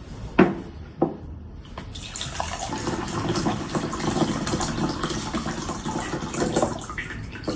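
Two sharp knocks, then, from about two seconds in, water pouring steadily into a container: the water being measured out for a brine.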